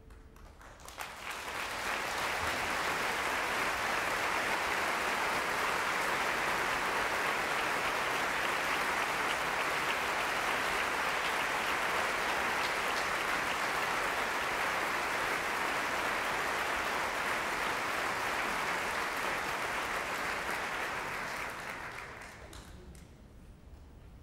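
Audience applause, starting about a second in, holding steady for about twenty seconds, then dying away near the end.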